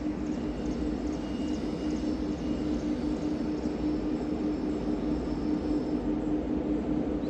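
Distant train running in the ghat: a steady drone with a constant low hum that does not change.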